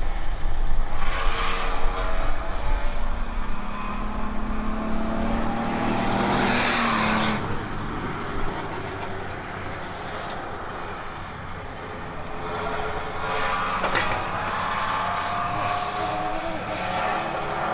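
Ford Ranger race truck engines on an oval track: first heard through the trackside fence, then from the hood of the racing Ranger. Its engine pitch climbs in several steps as it accelerates out of a turn and down the straight, with wind noise.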